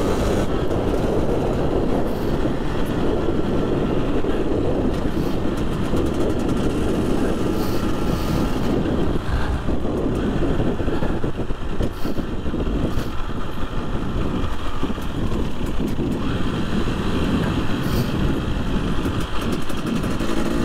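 Husqvarna two-stroke motorcycle being ridden hard, its engine revving and pulling under heavy wind rush across the microphone; a rising engine note near the end.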